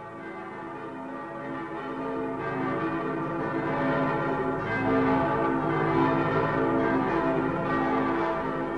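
Ringing bell tones, many pitches overlapping and sustained, swelling steadily louder as a music track opens.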